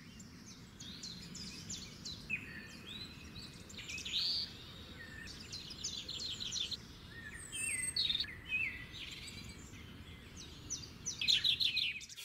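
Several small birds chirping, whistling and trilling in quick repeated notes, over a steady low background rumble.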